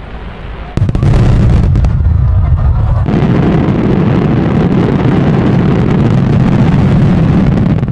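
Mass salvo of fireworks shells bursting, heard from about 1.8 km away: many overlapping booms merge into a continuous low rumble. It starts suddenly about a second in and grows fuller about three seconds in.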